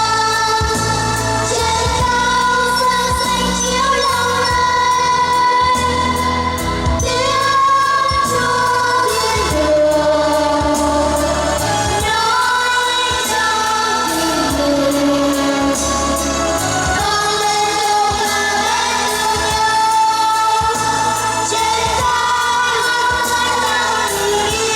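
Vocal Christmas song with instrumental accompaniment: long held sung notes with vibrato over a steady, pulsing bass.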